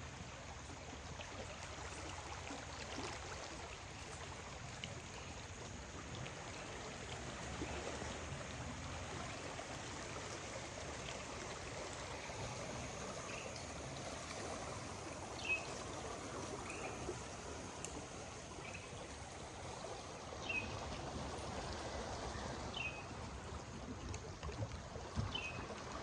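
Steady wash of flowing water from the flooded Suwannee River, with a bird giving short, falling chirps every second or two through the second half.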